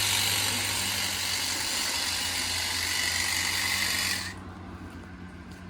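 Ego battery telescopic hedge trimmer running steadily with a loud hiss over a low hum. About four seconds in the hiss cuts off abruptly and the level drops, leaving the low hum going.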